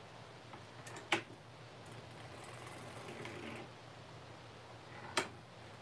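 Hand-cranked circular sock machine being worked: two sharp clicks about four seconds apart over a low steady hum.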